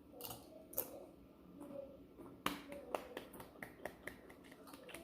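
Irregular sharp clicks and crackles, the loudest about halfway through, from a plate of crisp tortilla-chip nachos being handled.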